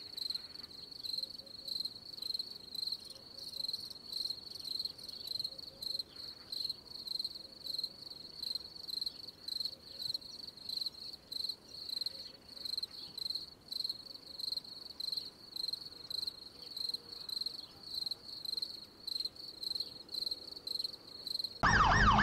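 Cricket chirping sound effect, a steady rhythmic chirp a few times a second, the comic cue for a stunned, awkward silence. Just before the end a wailing siren-like sound cuts in.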